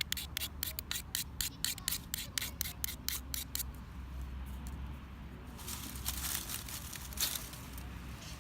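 Quick, rhythmic scraping strokes, about four a second, which stop about three and a half seconds in, followed by a longer hissing rasp near the end.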